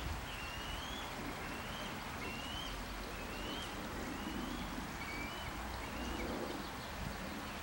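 A bird calling over and over, a short rising whistled note about once a second, over a steady outdoor background hiss.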